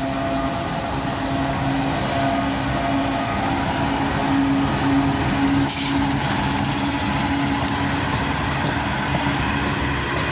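A train running through the station with a steady rumble and an even low engine hum.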